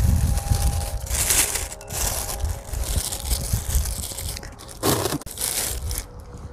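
Plastic shopping bags crinkling and rustling as hands tuck them around the base of a potted amaryllis bulb, in uneven handfuls with louder crackles about a second and a half in and again about five seconds in. The rustling dies down near the end.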